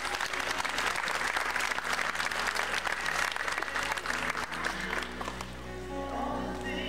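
Audience applauding over background music; the clapping dies away about five seconds in, leaving the music.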